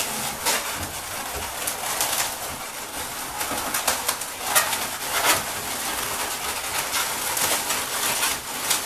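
Latex modelling balloons squeaking and rubbing against each other as they are twisted and wrapped together, in a string of short squeaks over continuous rubbery rustling.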